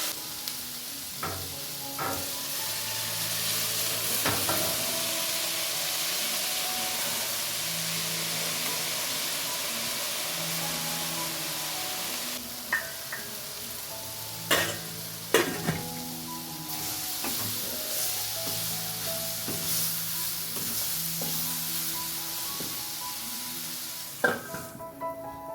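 Food frying and sizzling in a pan while being stirred, with a few sharp clicks of a utensil against the pan. Soft background music runs underneath.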